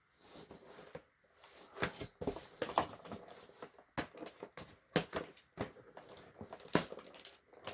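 Irregular clicks, crinkles and snips of plastic toy packaging being handled and cut, as the tape and rubber bands holding the figure in its tray are cut away; a few sharper clicks stand out in the second half.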